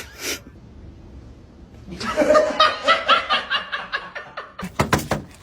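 A person laughing in a run of quick, repeated bursts, starting about two seconds in, followed by a few sharp clicks near the end.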